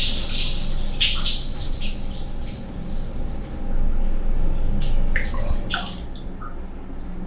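Water poured from a handled plastic bath pail over a person's shoulder, splashing onto skin and the tiled floor. The splashing is heaviest at the start, eases, and comes back about four seconds in, with scattered drips and small splashes between.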